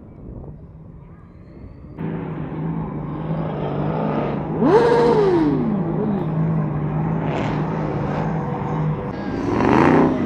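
Car engines driving past at low speed, louder from about two seconds in. There is a steady engine note, then a sharp rev that climbs and drops back about halfway through, and another rev rising near the end.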